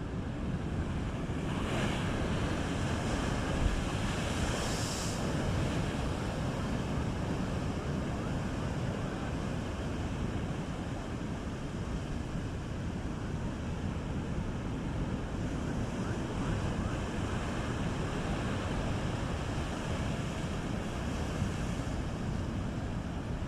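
Rough sea: waves surging under a steady low rumbling wash, with wind buffeting the microphone. A few brief brighter swells of hiss come about two and five seconds in.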